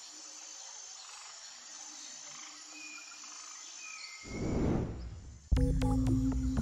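Faint forest ambience of steady insect hiss and a few short chirps. About four seconds in comes a swelling whoosh that falls in pitch, a transition sound effect. A second later music cuts in suddenly with a low drone and a pulsing beat.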